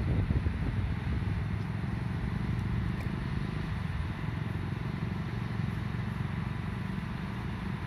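Steady low rumble of outdoor background noise with a faint hiss above it, with no distinct events.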